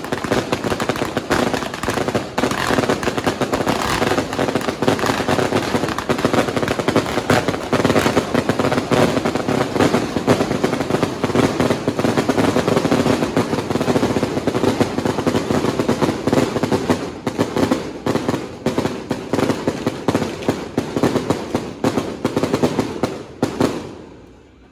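Massed firecracker strings and fireworks crackling in a dense, continuous barrage that thins out and dies away near the end.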